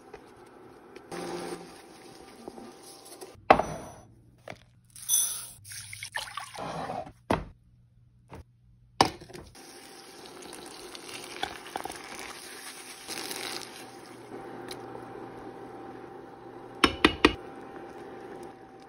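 Cooking sounds in a stainless-steel frying pan: liquid poured in and bubbling, and tongs and utensils clinking and scraping against the pan. There are sharp knocks now and then, with a cluster of three near the end.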